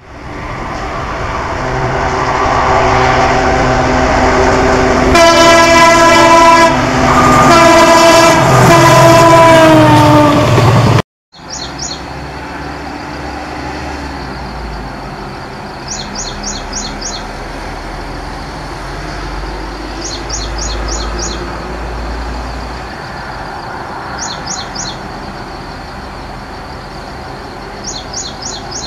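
EMD WDG4 diesel locomotive running at full power and coming closer, sounding its multi-tone horn in two long blasts about five seconds in; the horn falls in pitch as it passes and the sound cuts off suddenly. Then a low distant engine rumble, with a bird chirping in quick runs of four or five notes every few seconds.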